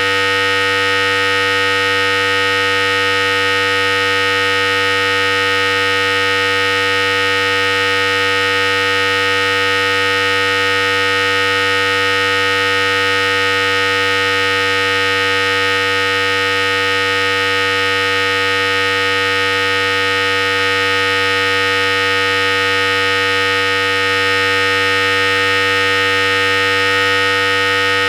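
Philips Series 5000 hair clipper running continuously: a steady, unchanging electric buzz with a low hum beneath it.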